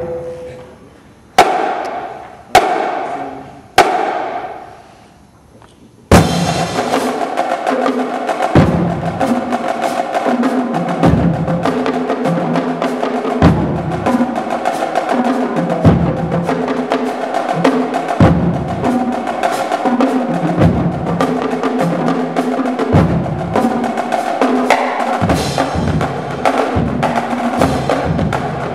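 Marching drumline of snare drums, tenor drums and bass drums. It plays three loud unison hits a little over a second apart, each ringing out, then after a short pause a fast, continuous cadence starts about six seconds in, with low bass drum hits recurring about every two and a half seconds.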